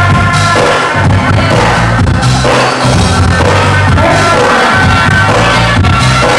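Loud dance music played over a club sound system, with a heavy bass line and a singing voice.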